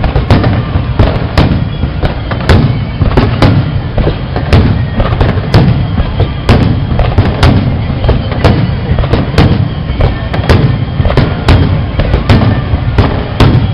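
Aerial fireworks shells bursting in quick succession, sharp bangs about two a second over a steady low rumble.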